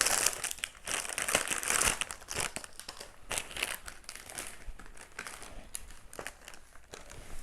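Plastic wrapper of a seasoned seaweed snack crinkling as it is handled, most heavily in the first two seconds, then in lighter scattered crackles.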